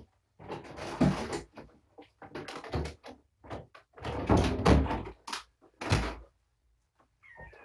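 Repeated knocks, thuds and clattering of objects being handled and moved about in a small room. The loudest bursts come about a second in and four to five seconds in, with another near six seconds.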